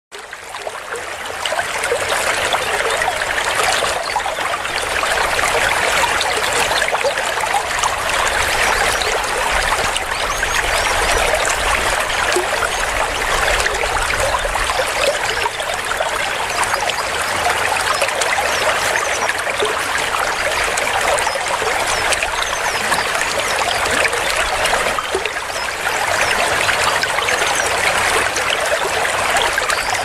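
Small waterfall pouring over rock into a plunge pool: a steady rushing splash of falling water that fades in over the first second or so.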